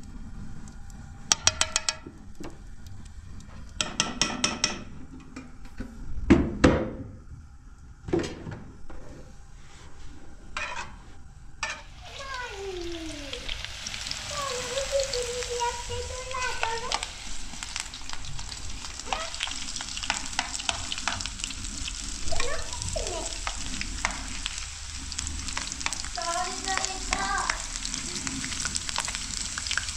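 A few knocks and clatters, then from about twelve seconds in, raw potato sticks fry in hot fat in an aluminium frying pan with a steady sizzle. A metal ladle stirs them near the end.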